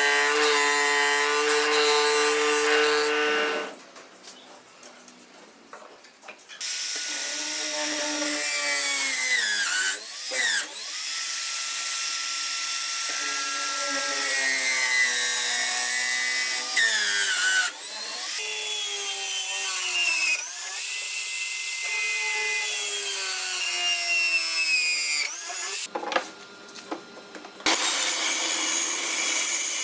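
A power tool running and working wood, its motor pitch repeatedly sliding down and back up as it cuts under load. It stops twice briefly, about four seconds in and again near the end.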